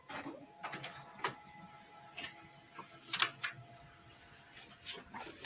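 Desktop printer running faintly: a steady whir with scattered clicks and taps as it feeds and prints a sheet.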